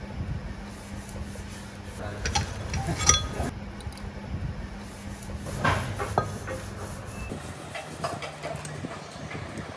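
Cylinder liner being worked loose and pulled out of a diesel engine block: metal-on-metal knocks and clinks, loudest about three seconds in and again about six seconds in, over a steady low hum.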